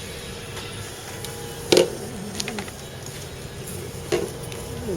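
A few sharp clinks and knocks of handled knife blades, the loudest about two seconds in and another near the end, over a faint steady hum.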